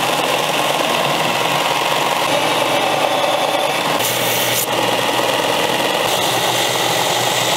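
Bench belt sander running, its abrasive belt grinding rust off a steel axe head and throwing sparks, a steady grinding hiss over the motor's hum. The grinding turns briefly harsher about four seconds in.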